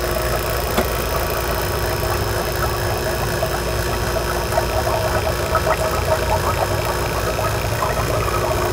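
A/C evacuation vacuum pump running steadily, pulling a vacuum on a car's air-conditioning system: a constant motor hum with a light, rapid chatter.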